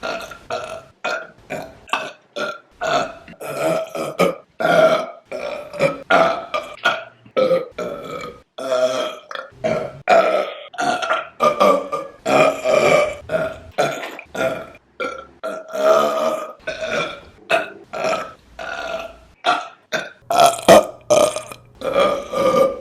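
A woman burping over and over, a rapid run of short, loud pitched burps about one or two a second, each starting and stopping abruptly.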